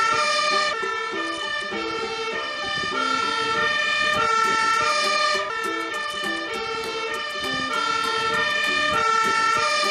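Fire engine siren sounding, its tone stepping back and forth between pitches about every half second, as the truck pulls out on an emergency run.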